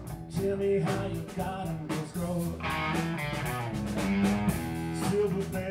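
Live band playing rock music: electric guitar over a drum kit.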